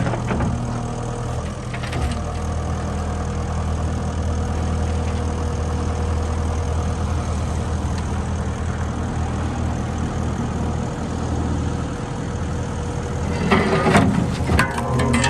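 Case SR175 skid steer's diesel engine running steadily at idle, an engine the owner says will not rev up past idle. Near the end a brief louder burst of sound rises over the engine.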